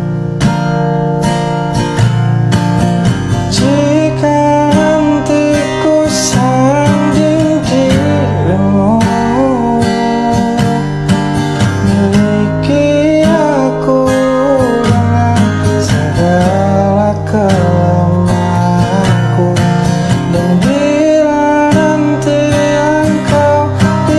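Acoustic guitar strumming chords of a pop ballad, played continuously.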